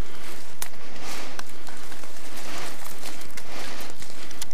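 Footsteps and rustling as a person in a ghillie suit pushes through dry brush and undergrowth, the noise swelling and fading about once a second, with a few sharp clicks in between.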